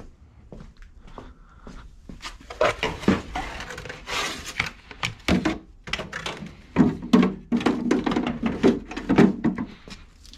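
Irregular knocks, clicks and clatter of tools and objects being handled and set down, a few of them sharp and loud.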